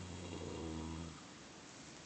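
Horse snoring while asleep lying down: one low, steady snore about a second long, stopping a little past the middle.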